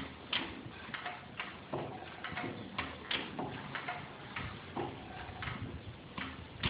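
10 HP IHC Mogul single-cylinder stationary engine running slowly: an uneven clatter of sharp clicks about twice a second, with a deeper thump now and then.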